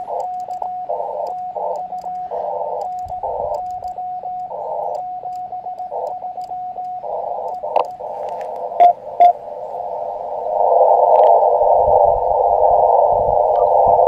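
Elecraft KX2 transceiver audio through a small speaker: Morse code (CW) keyed on and off in a rhythm of dots and dashes, a tone near 700 Hz with bands of receiver hiss. From about ten seconds in the hiss becomes steady and louder as the receiver listens to band noise.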